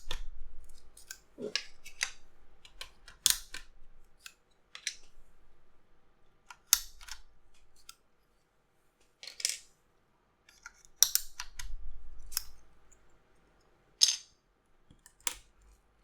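Plastic keycaps being pulled off and pressed onto the switches of a mechanical keyboard: scattered sharp clicks and clacks, about ten of them, with short handling rustles between.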